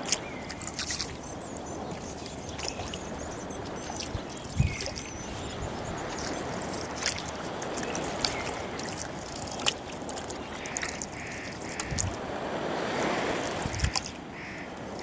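Rowboat oars pulling through water in slow strokes, the splashing swelling with each stroke, with several sharp wooden knocks. Birds call over it.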